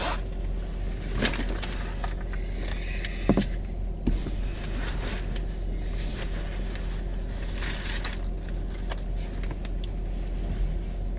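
A vehicle engine idling with a steady low hum, with a few light clicks and rustles of handling over it.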